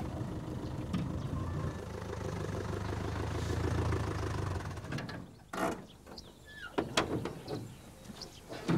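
Off-road vehicle's engine running with a steady low hum, which dies away about halfway through as the vehicle stops. A few short clicks and knocks follow as the vehicle's door is opened.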